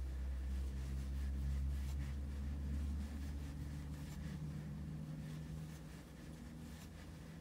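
Soft, scratchy rustling of yarn pulled through stitches with a metal crochet hook, over a low rumble that is loudest for the first three seconds and eases off after about six.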